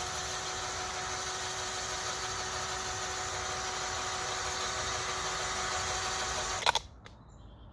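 Cordless drill running at a steady speed, spinning a paint-covered canvas, with a constant whine over a whooshing hiss. It cuts off suddenly with a click a little before the end.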